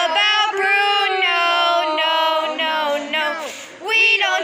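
Several high-pitched voices singing overlapping lines, with long held notes that slide in pitch. A short breathy hiss comes about three and a half seconds in, then the singing picks up again.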